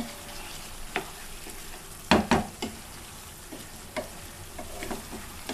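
Pieces of chicken and potato sizzling in a pot while a spoon stirs them, scraping and knocking against the pot; the loudest knocks come a little after two seconds in.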